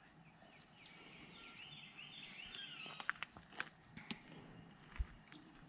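Faint bird calls, a run of short repeated chirping notes, with a few light sharp ticks and taps in the second half.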